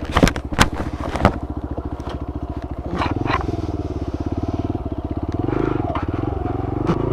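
Motorcycle engine ticking over with a steady rapid throb, with a few sharp clicks in the first second or so. About three seconds in it gets louder and its revs rise and fall as the throttle is worked.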